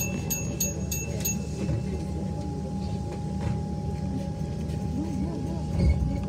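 Train door-closing warning beeps: a quick run of short high beeps, about three a second, ending just over a second in. Under them the carriage's steady low rumble and constant hum carry on, with one low thump near the end.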